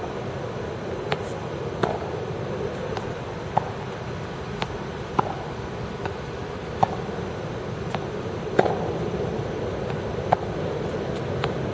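Tennis balls being hit and bouncing during a rally drill: a sharp pop every second or so, at irregular intervals, over steady background noise.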